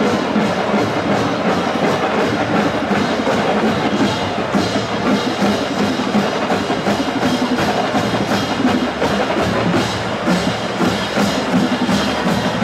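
Marching band drumline playing a steady cadence, about four sharp strokes a second, with a woodblock-like click over a full, dense background.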